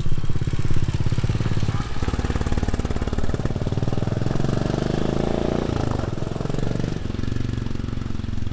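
Royal Enfield Classic 350's air-cooled single-cylinder engine pulling away and accelerating, its steady firing pulses rising in pitch and dropping back at gear changes.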